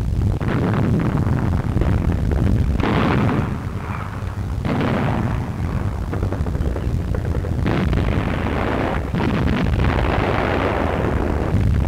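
Explosions of an artillery bombardment on an old film soundtrack: a continuous heavy low rumble with several sharper blasts, about 3, 5, 8 and 9 seconds in.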